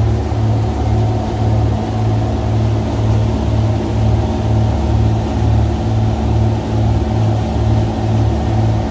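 Engines of a 1982 Bertram sportfishing boat running under way: a low, steady drone that throbs about twice a second, over a hiss of wind and rushing water. It cuts off suddenly at the end.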